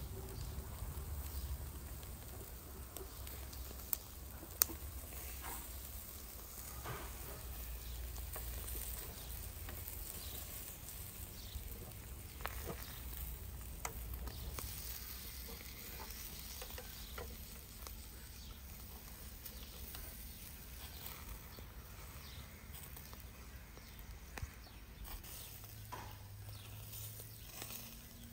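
Lamb heads on metal skewers sizzling over a charcoal grill, with scattered crackles and two sharp clicks about four seconds in.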